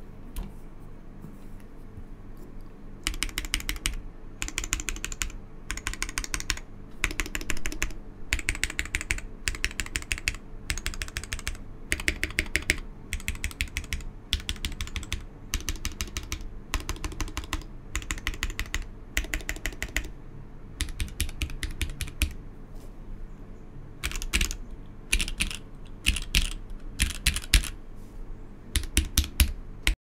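Think6.5 V2 mechanical keyboard with SP-Star Ayara switches on an FR4 plate and GMK keycaps. Its larger stabilized modifier keys, on lubed C3 stabilizers, are pressed in short repeated groups about once a second. Near the end, keys are tapped more densely along the rows.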